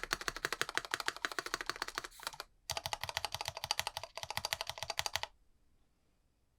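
Fast typing on a Monstargear ALU XO V3 keyboard with lubed Kailh Box Black linear switches and Poron plate and case foam: dense runs of keystrokes. The typing pauses briefly about two and a half seconds in and stops a little after five seconds.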